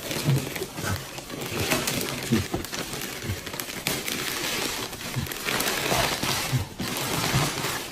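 Wrapping paper rustling and crinkling in irregular bursts as it is pulled off a gift box, with someone chewing and gnawing roast chicken underneath.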